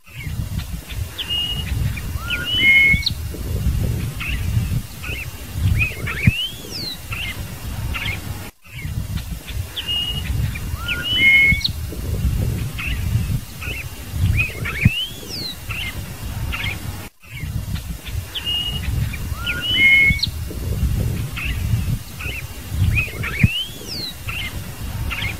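Scarlet-headed blackbird (cardeal-do-banhado) singing: a phrase of short whistled notes and rising and falling slurs, repeated the same way three times, about every eight and a half seconds, with a low rumble underneath.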